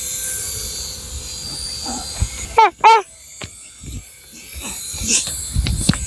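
Two short, excited squeals from a young child, each rising then falling in pitch, a little before halfway, over a faint high hiss and light scuffs.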